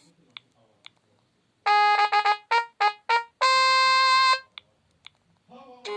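Sony Ericsson W595 mobile phone playing a built-in sound effect: a short synthesized jingle of about six quick notes ending on one long held note. Faint clicks come before and after it, and another short tone phrase starts near the end.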